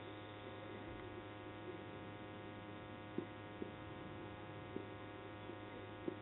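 Steady electrical mains hum, a buzz with many evenly spaced overtones, with a few faint clicks between about three and five seconds in.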